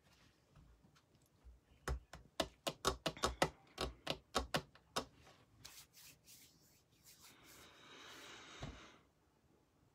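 A quick, irregular run of about fifteen sharp taps or clicks, like typing, over about three seconds, followed by a couple of seconds of rubbing or rustling that ends in a thump: hands handling something close to the microphone.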